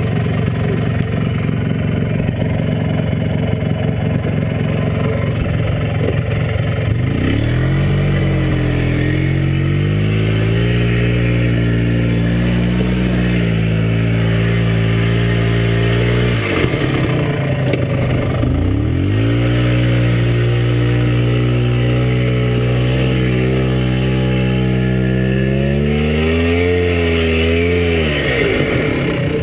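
Polaris Trailblazer 250's two-stroke single-cylinder engine running under load as the quad churns through a mud hole: low revs at first, then revved up about a quarter of the way in and held high. The revs drop and climb again about halfway, and rise once more before falling off near the end.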